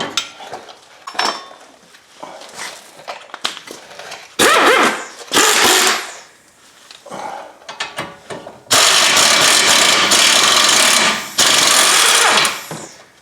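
A power tool runs in two bursts, a short one about four seconds in and a longer one of about four seconds starting near nine seconds, spinning out the 17 mm brake caliper bracket bolts that were just broken loose. Light clanks and knocks of tools come before it.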